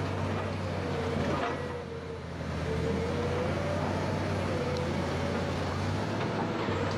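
Crawler bulldozer's diesel engine running steadily, a low hum with a wavering whine rising and falling over it; the sound dips briefly about two seconds in.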